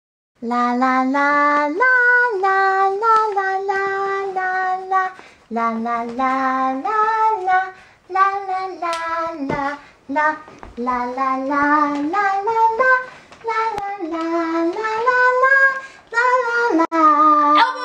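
A young female voice singing a melody solo, in held notes that step up and down, broken into short phrases with brief pauses between them.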